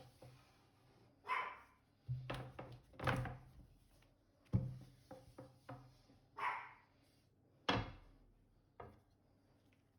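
Several sharp knocks and thuds from kitchen work at a counter, with two short, louder sounds about a second and a half in and again near six and a half seconds.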